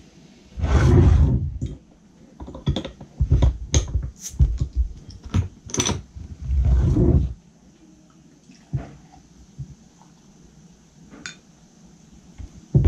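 A glass Heineken beer bottle and a drinking glass handled on a wooden table, with clinks and knocks and two louder bursts of rough sound, then beer poured into the glass and foaming up.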